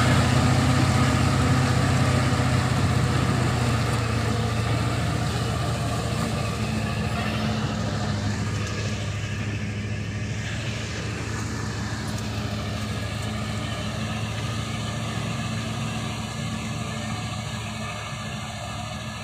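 Heavy sugarcane truck's diesel engine running steadily under load as it pulls away along a muddy track, growing gradually fainter.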